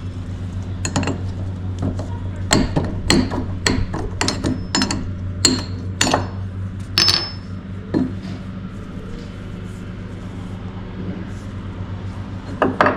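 Hammer blows on a steel punch, metal on metal with a short ring after each, about a dozen sharp strikes in the first two-thirds and one more near the end, breaking an old split wheel bearing off the rear hub. A steady low hum runs underneath.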